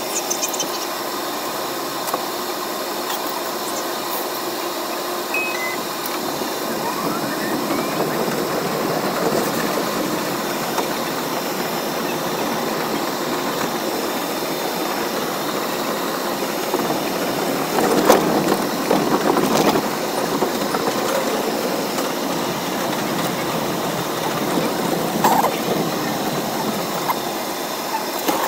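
Bombardier R62A subway train running on elevated track, heard from inside the front car: a steady rush of running and rail noise with a few sharp clacks, the loudest cluster about eighteen seconds in.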